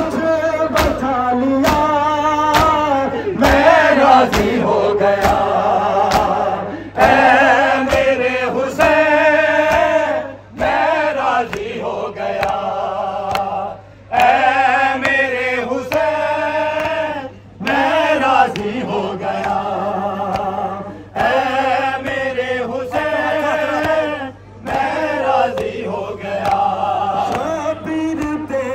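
A Shia noha chanted by male voices over a loudspeaker, with a crowd of mourners singing along in repeated phrases about every three and a half seconds. Sharp slaps keep a steady beat under the singing: the mourners' matam, or chest-beating.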